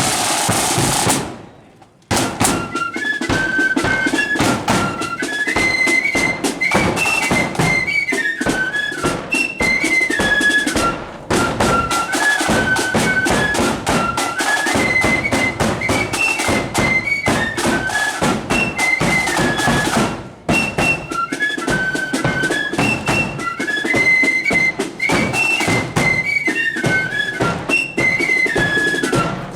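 Marching band of flutes and drums playing a tune: a high, stepping flute melody over steady snare and bass drum beats, starting about two seconds in.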